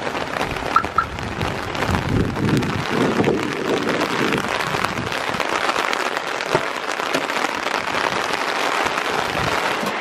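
Heavy monsoon rain falling: a steady hiss of dense drops pattering, with a low rumble about two to four seconds in.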